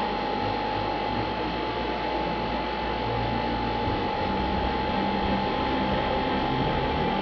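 Steady mechanical hum with a constant high-pitched whine running through it.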